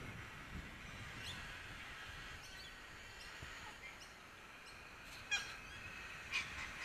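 Faint, scattered harsh bird calls, with two louder calls near the end.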